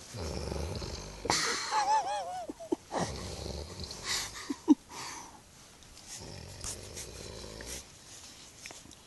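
Snoring: low rattling snores at the start and again about six seconds in, with a wavering, whistle-like squeak on the breath about two seconds in and a few sharp clicks.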